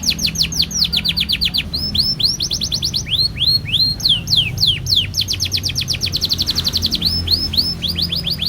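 Domestic canary singing a long, unbroken song of rolls: rapid runs of falling whistled notes that switch back and forth between fast trills and slower swooping notes.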